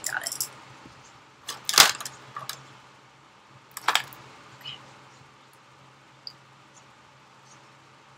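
Makeup brush and products being handled on a table: a sharp knock about two seconds in, another about four seconds in, then a few faint ticks, over a faint steady low hum.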